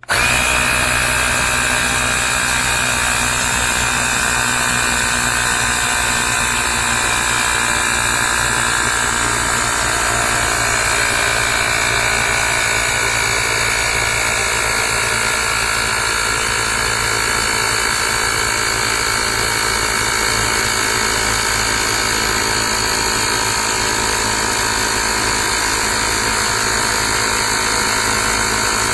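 Fanttik X8 APEX cordless tire inflator's compressor starting abruptly and running steadily, pumping up a bicycle tire toward a preset 75 PSI.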